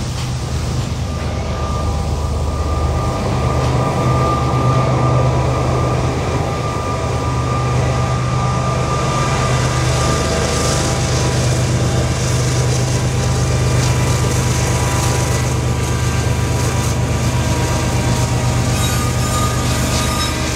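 A loaded coal train rolling past, with steady wheel and car noise. Partway through, the mid-train diesel locomotive passes close by, its engine a steady low drone. A few thin, steady high tones sit above the rumble throughout.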